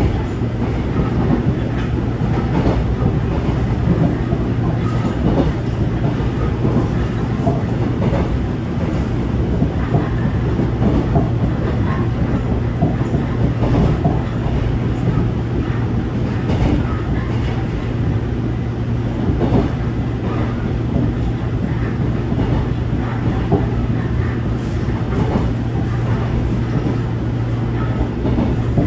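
Seoul Line 1 electric commuter train running at speed, heard from inside the passenger car: a steady rumble and hum, with scattered clicks from the wheels on the rails.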